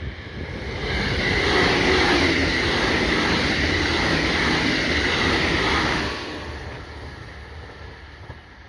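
A train passing close by: it grows louder over the first second, stays loud for about five seconds, then fades away.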